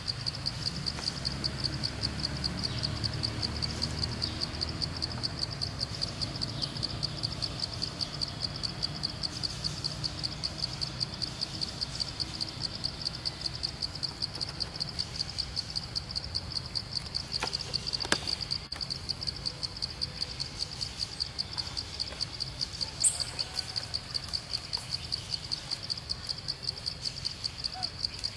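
A steady, high-pitched chorus of chirping insects, pulsing rapidly and evenly, with one sharp click about two-thirds of the way through.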